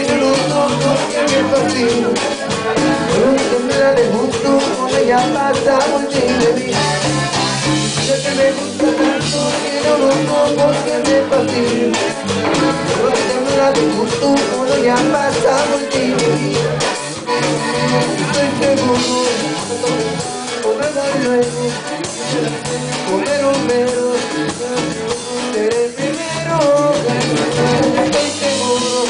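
A live band playing a Latin song.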